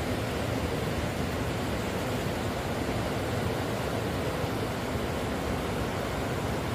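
Ocean surf breaking and washing over a flat sandy beach: a steady rushing noise.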